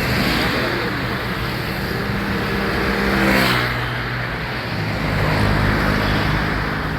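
A large tour bus's diesel engine runs at low speed while the bus is manoeuvring to park, likely backing up. Its pitch rises briefly about halfway through, with a rush of noise that is loudest at that moment.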